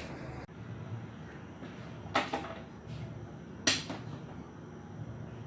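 Two sharp clacks about a second and a half apart, as of something being handled in a bathroom, over a faint steady background.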